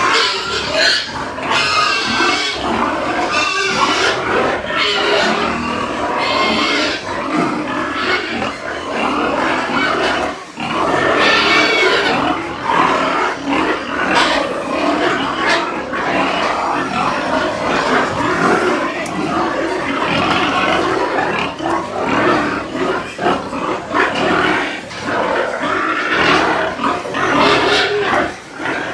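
Many penned pigs grunting and squealing together, loud and without a break.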